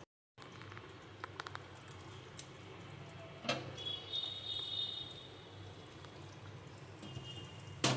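Hilsa fish curry gravy simmering in a metal pan, with soft liquid sounds. A sharp knock against the pan comes about three and a half seconds in, and a louder one near the end.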